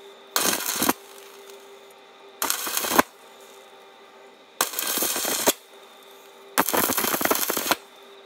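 Stick welding thin steel with a 1.6 mm rod on an inverter arc welder: the arc crackles in four short bursts, each under a second, as it is struck and broken again to fill a rusted-out gap in a fatigued bracket. A faint steady hum sounds between the bursts.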